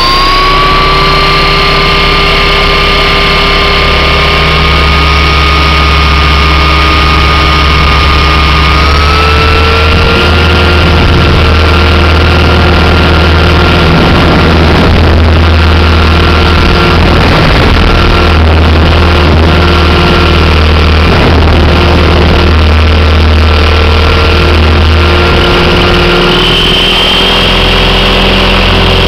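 Thunder Tiger Mini Titan E325 electric RC helicopter in flight, heard from a camera mounted on it: a steady whine from the motor and gears over a loud, heavy rotor drone. The whine's pitch steps up slightly about nine seconds in, and a higher tone joins near the end.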